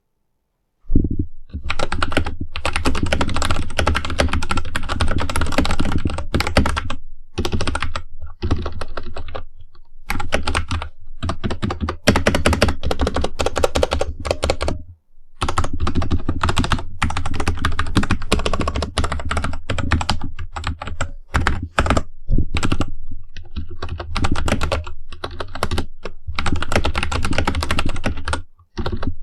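Royal Kludge RK84 mechanical keyboard with brown tactile switches being typed on fast, a dense run of key clacks starting about a second in, broken by a few short pauses.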